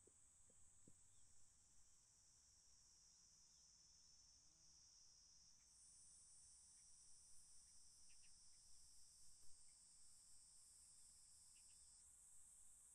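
Faint, steady high-pitched chorus of insects, with one of its voices dropping out near the end.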